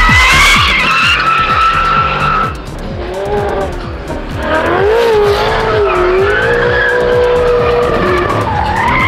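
Drift cars sliding on the track: tyres squealing in long, wavering slides, with engine noise beneath. One squeal runs for about the first two and a half seconds, and a second, lower one starts about four and a half seconds in.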